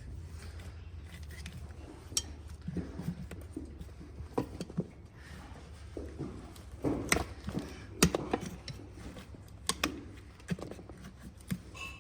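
Hoof knife scraping and paring dry, dead sole from an overgrown horse hoof: irregular scratchy cuts and sharp clicks, busiest around seven to eight seconds in.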